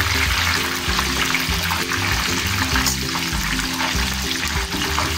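Pork belly deep-frying in hot oil with a steady sizzle, in its second frying to crisp the skin. Background music with a bass line plays over it.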